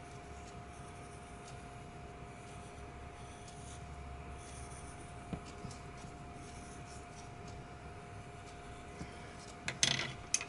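Pencil scratching lightly on paper as it shades, with a faint steady hum underneath. Near the end come a few louder sharp clicks and a brief rustle.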